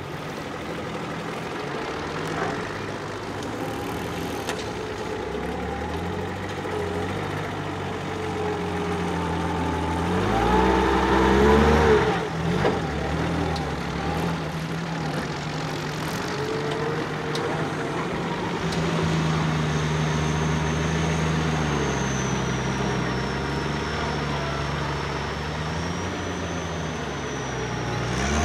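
Mercedes Unimog 404 trial truck's engine working at low revs as it crawls over rough ground, its pitch rising and falling with the throttle. About ten seconds in it revs up hard for a couple of seconds, the loudest moment, then drops back. A thin high whine wavers above it in the second half.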